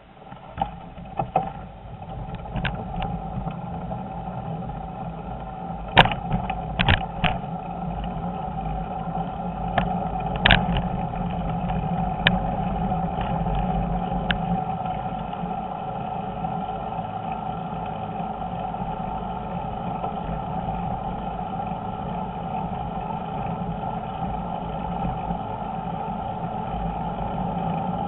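Bicycle rolling over concrete paving blocks, picked up by a camera on the handlebars: a steady rumble of tyres and frame that builds as the bike gets going, with a few sharp knocks from bumps in the first half.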